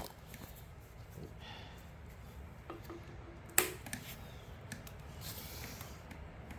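Sharp snips and clicks of a hand cutting tool and small parts, the loudest snap about three and a half seconds in, with a few fainter clicks around it, as old fuel line is cut out of a Husqvarna 128LD trimmer.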